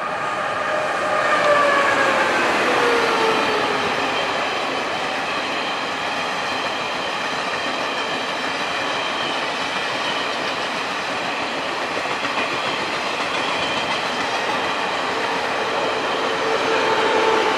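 E1000 push-pull Tze-Chiang express train passing at speed. The leading electric locomotive's whine falls in pitch as it goes by, followed by a steady rush and wheel clatter from the coaches. Near the end the rear locomotive's whine comes in again.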